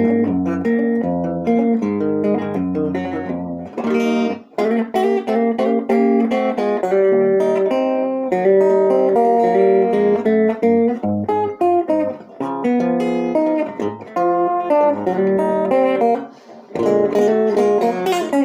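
1960 Guild T100 electric guitar played fingerstyle on both pickups, clean through a valve amp with no reverb: plucked single notes and chords in a jazzy line, with short gaps about four seconds in and near the end.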